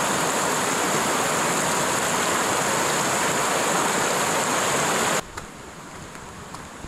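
Rushing mountain creek water, a loud steady rush that cuts off abruptly about five seconds in, leaving quiet outdoor background with a few faint ticks.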